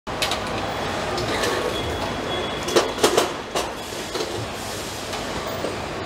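Car assembly-line noise: a steady machinery din with a brief high tone, then a few sharp metallic clanks in the middle.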